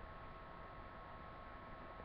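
Faint room tone: a steady low hiss with a thin, constant electrical whine.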